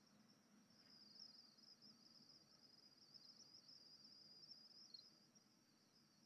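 Near silence, with only a faint, steady, high-pitched background shrill.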